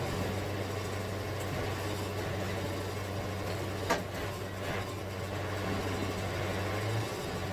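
An engine running steadily at a low, even hum, with one sharp click about four seconds in.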